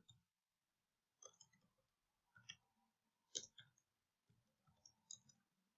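Near silence broken by a few faint, scattered computer-keyboard key clicks as text is typed.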